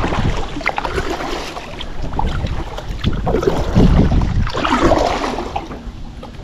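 Wind buffeting the microphone over water moving around a kayak as it is backed up, with louder splashy swishes about three seconds in and again around five seconds.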